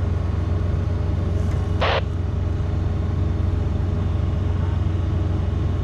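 Steady low hum of a bulk carrier's machinery, with a brief hiss about two seconds in.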